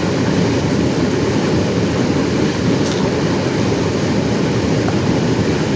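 A motor running steadily: a continuous loud rumble with no pauses or changes.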